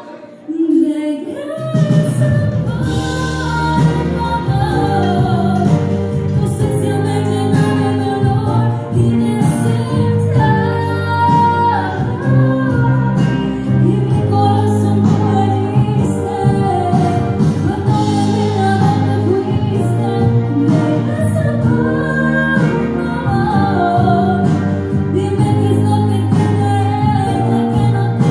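A woman singing a song over instrumental backing with a steady bass line. The music drops away briefly just after the start, then comes back in full.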